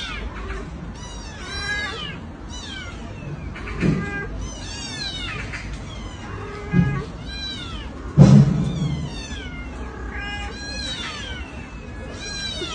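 Kittens mewing over and over in short, high-pitched calls, with a louder, lower cry about eight seconds in.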